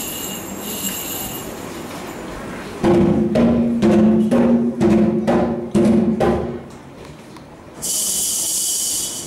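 A run of about eight pitched drum beats, played close together for some four seconds, then a steady high hiss starting near the end.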